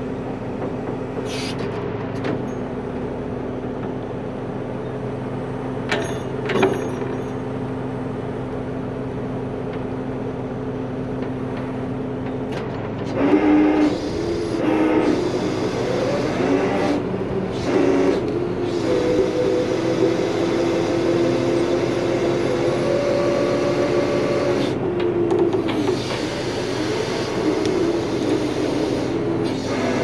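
Rotator wrecker's diesel truck engine running steadily, then about 13 seconds in it speeds up under load and a hydraulic whine rises and shifts in pitch as the boom and winch work to pull the backhoe up the bank. There are a few light clicks early on.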